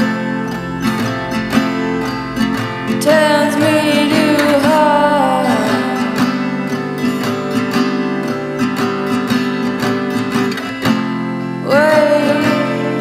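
Music: a track with guitar, its melody line gliding up and down in pitch.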